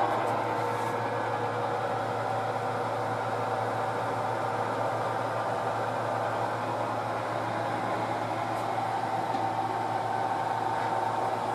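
HO scale model diesel locomotives' onboard sound running a steady diesel engine hum as they move down the yard track.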